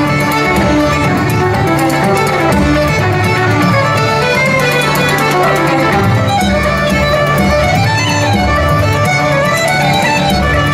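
Live Irish traditional music: a fiddle plays a quick tune of running notes over a bodhrán frame drum and a steady low backing.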